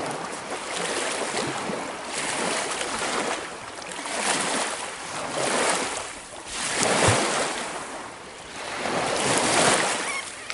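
Lake waves washing in against a rocky shore, swelling and falling back every second or two, with wind buffeting the microphone.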